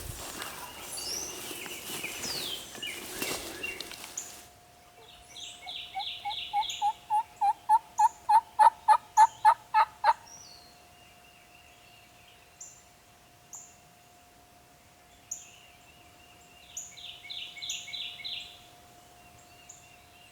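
A wild hen turkey yelping: a long run of about sixteen evenly spaced yelps, three to four a second, getting louder, then stopping. Before it, rustling footsteps through cover stop abruptly, and songbirds chirp and sing briefly afterwards.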